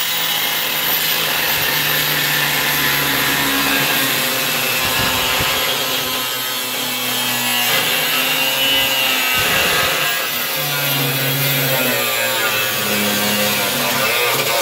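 Angle grinder with a cut-off disc cutting through rusted sheet steel of a truck cab floor, running steadily with a high whine and a grinding hiss.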